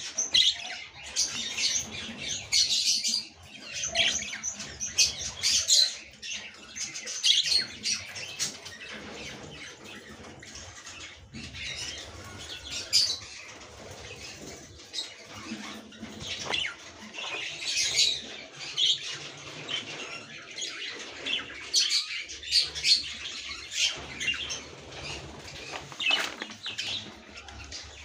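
Many small caged birds chirping in short, irregular bursts, with some wing fluttering.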